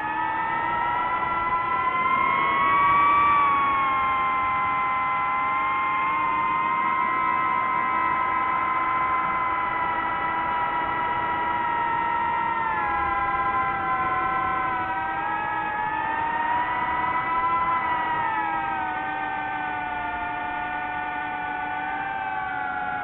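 DJI FPV drone's motors and propellers whining in flight, several pitches sliding up and down together as the throttle changes, highest about three seconds in and falling away near the end.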